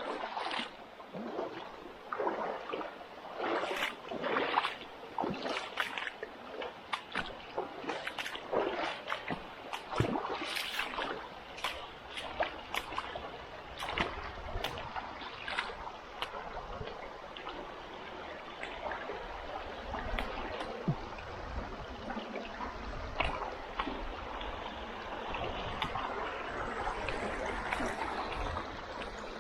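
Shallow river water running, with irregular splashes from steps wading through it, most frequent in the first half, then a steadier rush of water.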